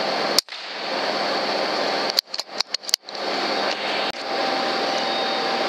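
Single shot from an FX Impact M3 .25 PCP air rifle about half a second in, heard as a short sharp crack over a steady recording hiss; the hiss drops away for a moment after the crack and then comes back. A quick run of about five sharp clicks follows between two and three seconds in.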